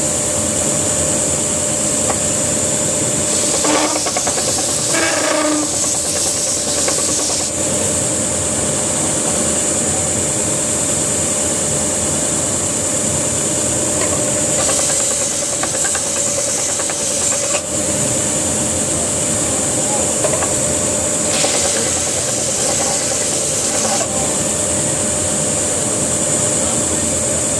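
Stationary belt sander running steadily with a constant whine and hiss as the oak box is sanded on it. About three times the hiss grows brighter for a few seconds, as the wood is pressed against the belt.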